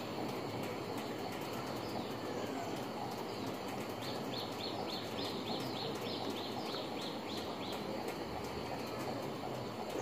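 Steady outdoor background hiss, with a bird calling a quick run of about a dozen short, high, falling notes starting about four seconds in.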